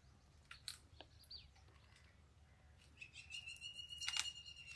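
Faint bird chirps, a few short calls early on, then one held high call from about three seconds in.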